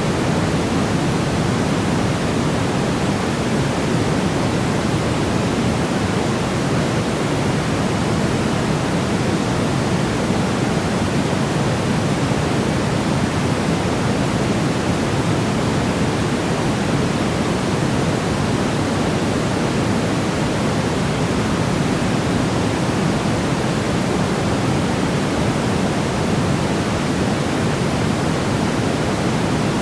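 Steady synthetic white noise played as a baby sleep aid: an even, unchanging hiss, fuller in the low end than in the high.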